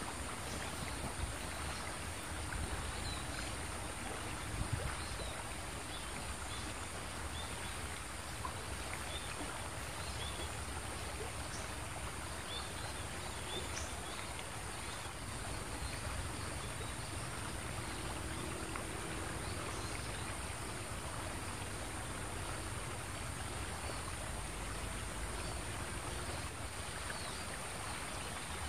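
Steady sound of flowing river water, an even hiss with a low rumble beneath it, with faint short chirps scattered through it.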